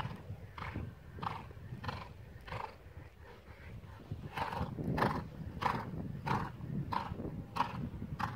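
Horse cantering, with a regular beat on each stride about every two-thirds of a second, growing louder about four seconds in.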